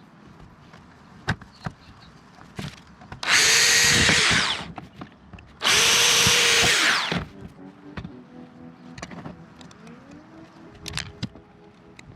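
Power drill boring into the hard plastic of a Toyota Prado centre console in two runs of about a second and a half each, the motor winding down as the trigger is released. Small clicks and knocks of handling come between them.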